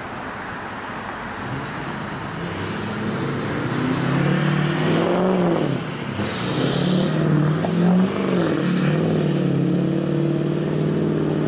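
Road traffic passing close by: vehicle engines grow louder from about four seconds in, one engine's pitch rising, dipping and rising again as it drives past, then settling into a steady engine hum over road noise.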